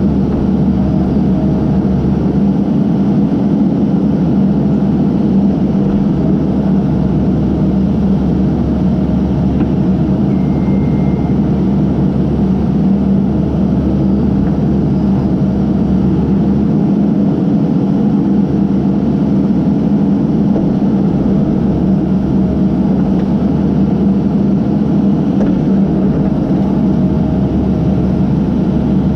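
Diesel engine of a Case backhoe running steadily, a constant drone with no breaks.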